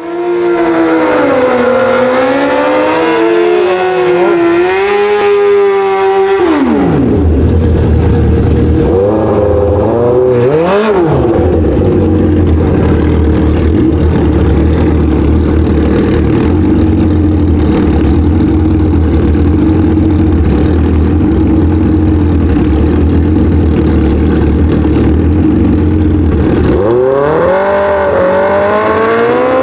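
Drag-racing superbike engines at the start line. They rev up and down for the first few seconds, then settle into a long steady run with a deep low hum, and give a quick rev blip about ten seconds in. They rev up again near the end.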